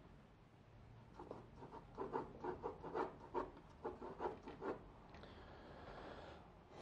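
Graphite pencil sketching on drawing paper: a run of quick, scratchy strokes at about four a second, from about a second in, then a steadier, smoother scratching near the end.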